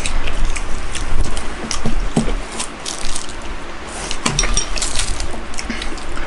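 Close-miked eating sounds: a run of wet mouth clicks and crackles from chewing and slurping, with a spoon clinking against a ceramic soup bowl, ringing briefly, about four and a half seconds in.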